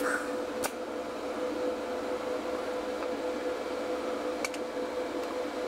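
TIG welding in progress: a steady arc hiss over the welding machine's hum, with a light click at about two thirds of a second and another a little after four seconds.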